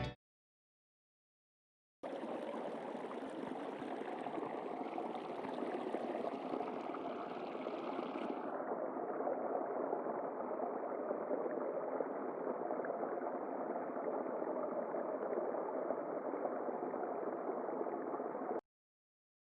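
Underwater ambience sound effect: a steady rush of water noise that starts about two seconds in and cuts off suddenly near the end. About halfway through its high end drops away, leaving it duller.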